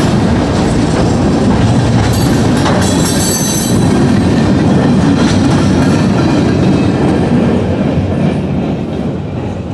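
Freight cars rolling through a grade crossing, wheels clattering over the rail joints with a brief high wheel squeal about three seconds in. The sound fades near the end as the last car passes.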